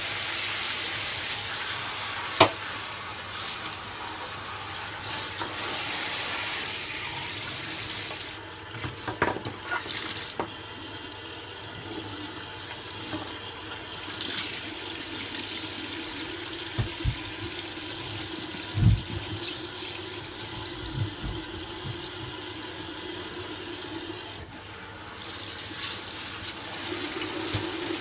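Kitchen mixer tap spraying water into a stainless steel sink while brush heads are rinsed and wiped under it by hand. A sharp click about two and a half seconds in, and a few clacks and low knocks over the middle of the stretch.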